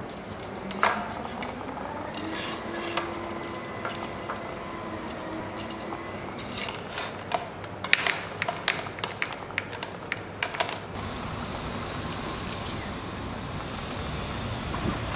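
Light clicks and knocks of bamboo poles, string and a plastic hose being handled and tied together, thickest around the middle. A steady low background rumble takes over in the last few seconds.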